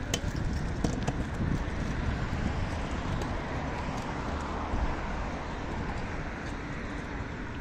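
City street ambience: a vehicle passing on the road, swelling and fading around the middle, over wind rumbling on the microphone, with a couple of sharp clicks in the first second.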